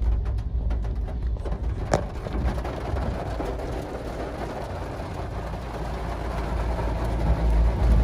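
Car driving on a wet road, heard from inside the cabin: a steady low rumble from engine and tyres with a hiss of tyres on wet tarmac. There are a few light ticks in the first couple of seconds, and the rumble grows louder near the end.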